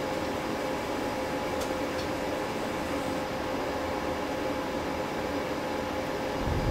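Steady background hum and hiss with a faint held whine in it, like a fan or air conditioner running; a short low bump near the end.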